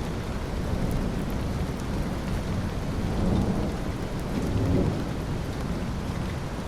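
Steady rain with low rolling thunder, the rumble swelling twice near the middle, and scattered raindrop ticks.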